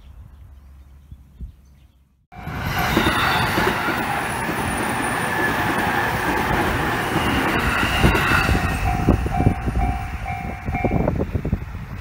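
JR Sobu Main Line train running through a level crossing, starting loud and suddenly about two seconds in, with wheels clacking over the rail joints. Toward the end the crossing's warning bell rings about twice a second and stops shortly before the end, a sign that the train has cleared and the barriers are lifting.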